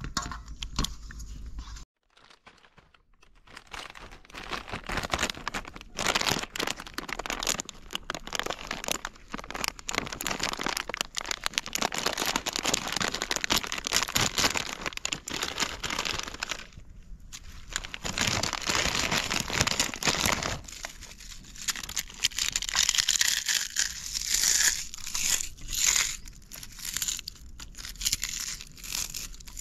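Foil potato-chip packet crinkling and rustling in dense, rapid crackles as it is torn open and handled, the chips inside crunching as they are crushed.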